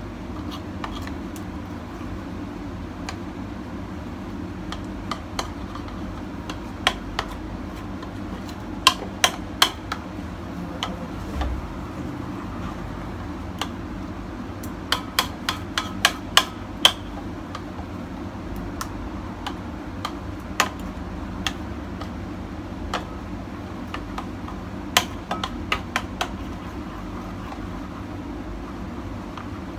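Metal spoon clinking against a ceramic dish while stirring thick gram-flour batter: sharp, irregular clinks that come in clusters, over a steady low hum.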